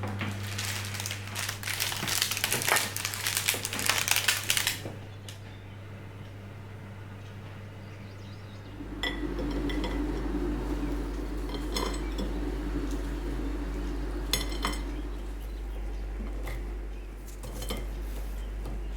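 Kitchen utensils and dishes clinking and clattering, dense for the first few seconds, then a few separate clinks. A steady low hum comes in about halfway through.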